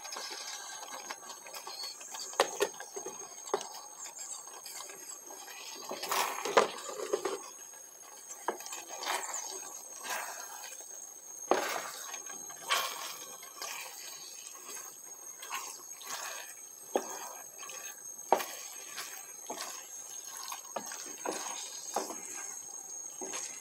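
Wooden spoon stirring pasta in a thick white cream sauce with grated cheese in a metal pan: irregular wet squelching with scattered knocks and scrapes of the spoon against the pan.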